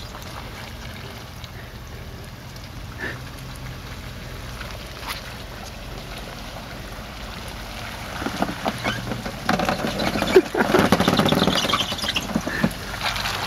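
Lifted Jeep Grand Cherokee WJ crawling down a muddy trail at low speed: a steady low engine hum, getting louder over the last five seconds as the tyres work through the mud, with a single knock about ten seconds in.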